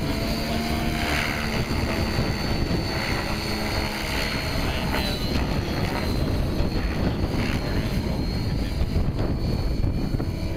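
Whiplash 90E radio-controlled helicopter flying, with steady rotor noise and a thin high whine that dips briefly about halfway through.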